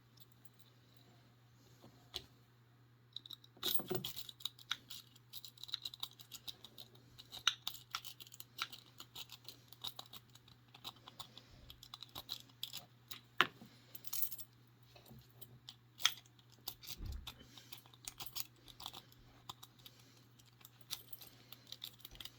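Rapid small metallic clicks and scrapes of a lock pick rake and tension tool working the pins of a discus padlock. The clicking becomes dense about three and a half seconds in.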